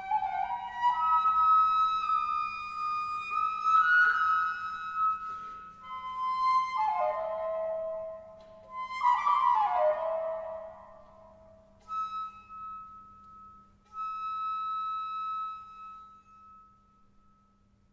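Solo eight-keyed transverse flute, a copy of a c. 1790 Grenser pitched at A = 430 Hz, playing the closing bars of a capriccio in E minor. Quick descending runs lead to a long held high note, which is repeated and then dies away into the church's reverberation near the end.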